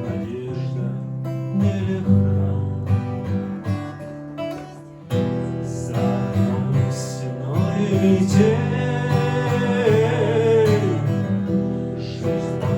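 Acoustic guitar strumming chords in a live song performance, with a sustained, wavering melody line joining in about halfway through.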